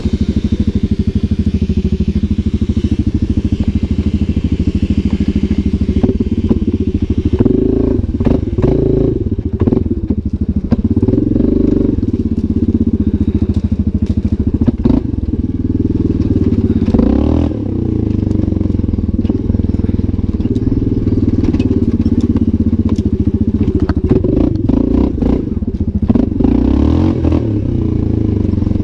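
Yamaha Grizzly 700 ATV's single-cylinder four-stroke engine running steadily under way, heard from a camera mounted on the quad's front, with repeated knocks and clatter from the rough track starting about seven seconds in.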